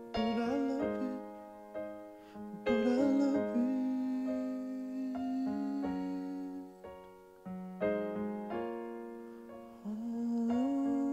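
Live music: slow keyboard chords, struck every one to three seconds and left to ring, with a wordless voice gliding beneath them, closing out the song.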